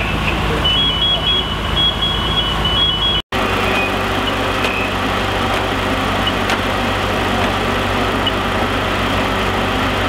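Fire engine running steadily at the scene, a constant engine hum. For the first few seconds a high electronic beep alternates between two pitches. A brief cut in the sound comes about three seconds in, and the engine runs on after it.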